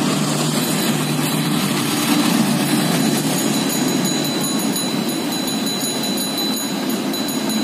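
Passenger train crossing the rail bridge above the underpass: a steady low rumble of the train running.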